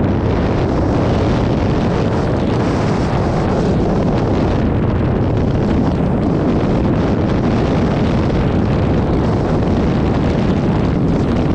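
Steady, loud wind noise buffeting the microphone. It runs without a break or change.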